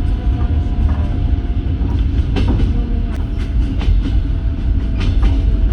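Passenger train running on the rails: a steady low rumble with irregular knocks of the wheels over rail joints (clickety-clack), and a thin steady whine.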